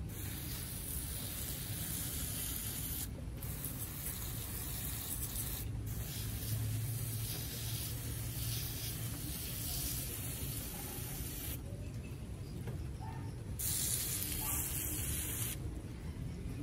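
Water spraying from a garden sprayer's wand onto potted plants: a steady hiss that cuts out briefly twice early on, then stops for about two seconds twice in the second half.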